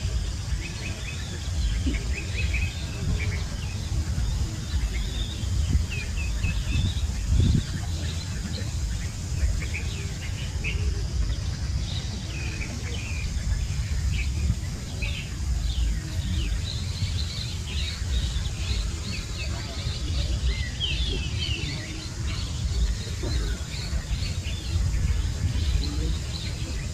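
Small birds chirping, many short quick chirps throughout and busier in the second half, over a steady low rumble.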